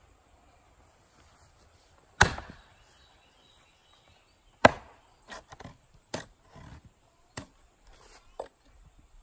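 Small Wetterlings hatchet-size axe chopping into a standing log on a chopping block: two heavy strikes about two and four and a half seconds in, then several lighter knocks as the axe, still stuck in the wood, works the split open.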